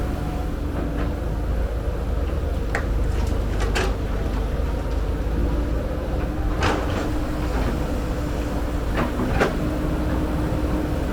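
Diesel engine of heavy earthmoving machinery running steadily, with several sharp metallic clanks through it, twice close together near the end.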